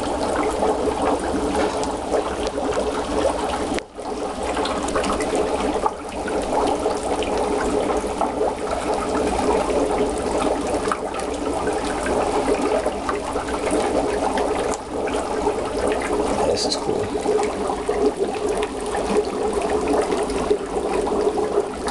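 Dry ice in a utility sink full of water, bubbling and gurgling continuously as it turns to gas, with a brief dip in loudness about four seconds in.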